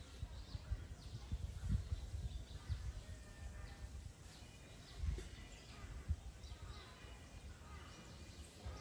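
Outdoor ambience: an uneven low rumble of wind on the microphone, with faint scattered bird chirps and a murmur of distant voices.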